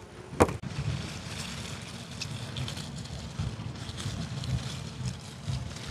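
A sharp click about half a second in, then wind buffeting the microphone in uneven low gusts, with faint rustling of raspberry leaves as the canes are handled.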